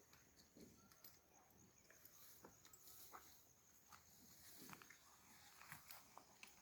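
Near silence: faint scattered ticks and rustles over a faint steady high hiss.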